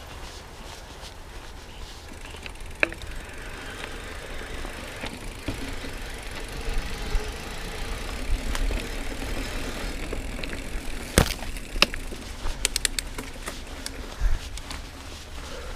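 Mountain bike rolling along a dirt singletrack: steady tyre noise on packed dirt with a low rumble, and sharp rattles and clacks of the bike over bumps, several close together between about eleven and thirteen seconds in.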